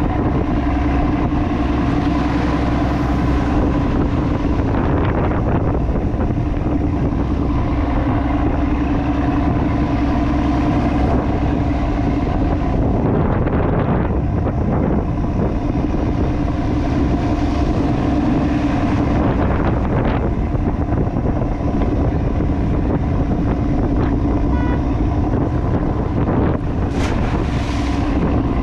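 Crab boat's engine running steadily with a constant hum, wind blowing over the microphone, and a few brief knocks.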